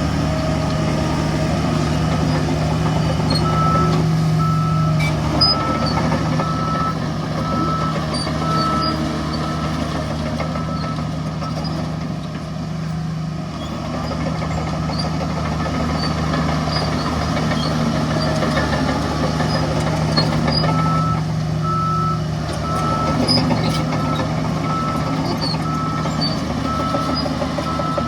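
Heavy diesel machinery running steadily, with a vehicle's reversing alarm beeping at an even pace in two spells: a few seconds in, and again from about twenty seconds in.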